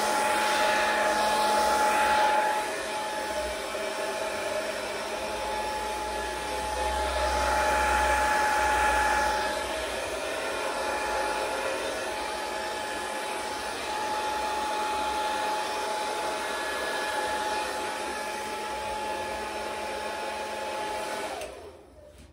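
Hand-held hair dryer blowing steadily, with a steady whine over its rushing air. It grows louder twice and is switched off abruptly near the end.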